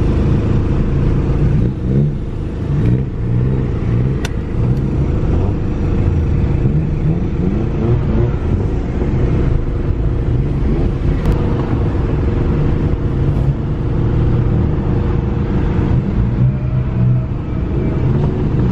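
Car engines idling and being revved, heard from inside a car, with the engine note rising several times as cars pull away.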